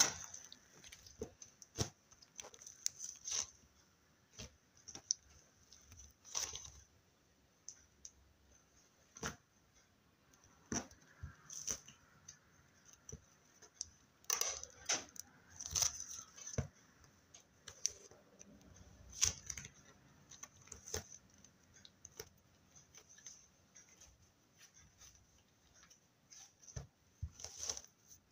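Slime being played with: irregular clicks and crackles, some coming in close clusters, with quieter gaps between.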